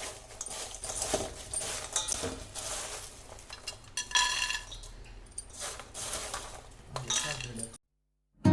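Metal kitchen utensils clinking and scraping against pans and dishes in irregular strokes, with one ringing metallic clink about four seconds in; the sound cuts off suddenly near the end.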